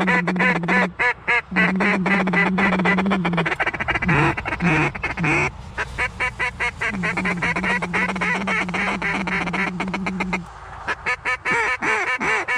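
Mallard-type duck quacking in fast runs of many quacks, with a steady low drone under it that drops out about a second in and stops again around ten seconds in.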